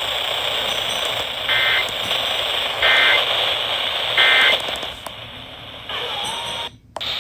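Weather radio receiver hiss with three short digital data bursts, about a second and a quarter apart: the SAME end-of-message tones that close an emergency alert broadcast. Near the end the hiss drops out briefly.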